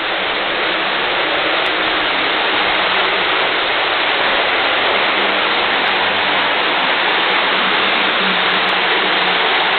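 Floodwater pouring into a flooding basement after heavy rain: a steady rushing noise that grows slightly louder.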